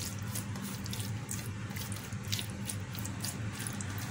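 Cut raw chicken livers being mixed with salt and black pepper on a ceramic plate: irregular wet squelching and light ticks, over a steady low hum.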